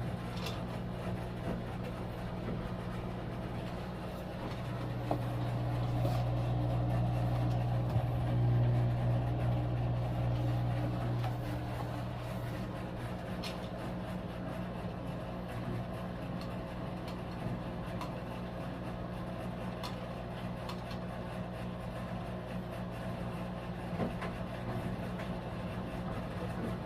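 Samsung Hauzen front-loading drum washing machine running with a steady low hum, its shock-absorber dampers newly replaced. The hum swells louder from about five to twelve seconds in, then settles back to a steady level.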